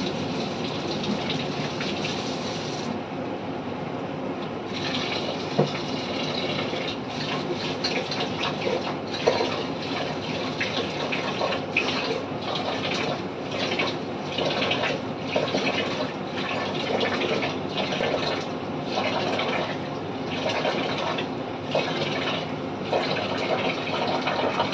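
Soyabean and tomato curry simmering in a covered steel pot: a steady sizzling, bubbling sound with irregular small pops.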